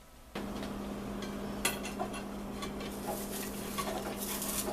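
Buttered sandwich bread sizzling in a non-stick skillet, a steady hiss with small crackles and a steady low hum underneath; it starts abruptly about a third of a second in.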